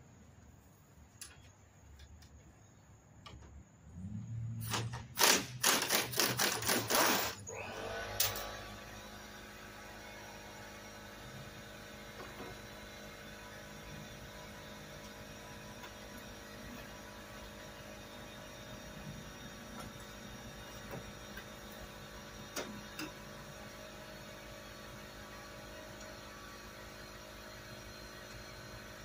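A hose-fed air tool runs in a string of loud bursts for about four seconds, undoing fasteners on the golf cart. A steady motor hum then starts and carries on.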